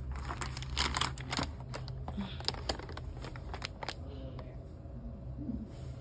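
Handling noise from packaging and the phone being carried: a quick run of crinkles and clicks in the first few seconds, thinning out after, over a steady low hum.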